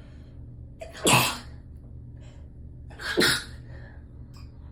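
A person sneezing twice, about two seconds apart, each a short intake of breath followed by a loud burst.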